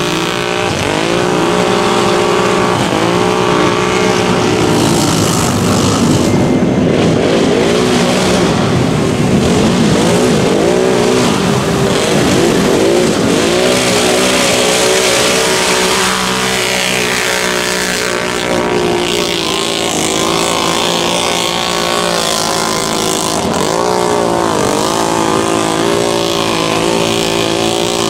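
Mud-bog ATV engines revving up and down in repeated surges as the quads churn through a flooded mud pit, with tyres throwing mud and water.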